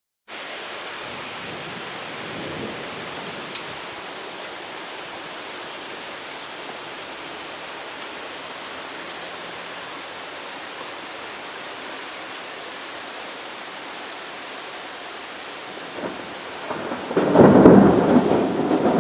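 Steady rain hissing through a thunderstorm, then a loud roll of thunder that builds up in the last few seconds.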